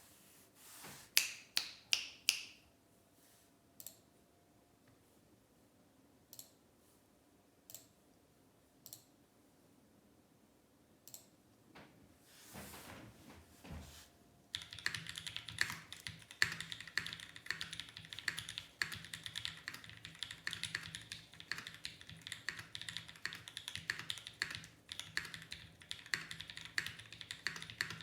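Typing on a Keycult No. 2 mechanical keyboard with lubed Holy Panda tactile switches, SPRiT springs and GMK keycaps: a handful of separate clicks in the first half, then continuous fast typing from about halfway.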